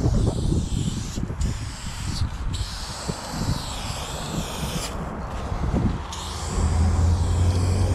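Aerosol spray-paint can hissing as black paint is sprayed onto a metal surface, in long passes broken by short pauses where the nozzle is released, over a low rumble.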